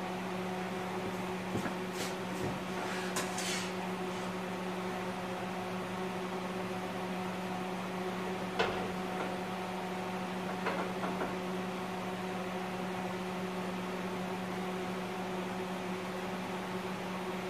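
A steady hum from a running machine, with a few light metallic clanks and knocks as a hand-operated sheet-metal brake is clamped and worked to fold a strip of sheet steel to 90 degrees.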